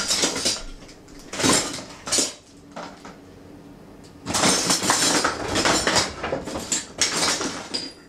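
Dishes and cutlery clattering and clinking as they are handled, in a few short bursts and then a longer, busier stretch from about four seconds in.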